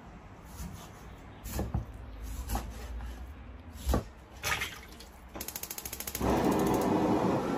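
A few knocks and clatters of kitchen work, a cleaver on a wooden chopping board and a wok being handled, the loudest about four seconds in. Then a gas hob's igniter clicks rapidly for about a second before the burner under a wok of cubed pork fat catches with a sudden steady roar.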